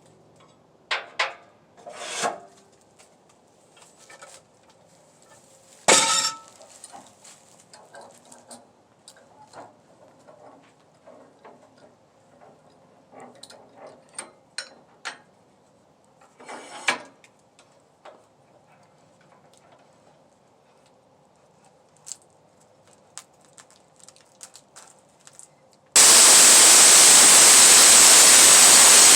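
Scattered sharp knocks and metal clinks from handling a log and gear on a portable sawmill. Near the end a loud, steady rushing noise starts abruptly: the sawmill running.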